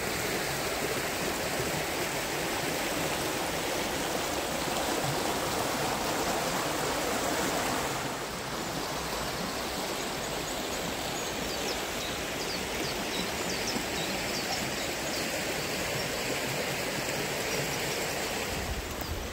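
River Whiteadder flowing over shallow rapids: a steady rush of water that eases slightly about eight seconds in.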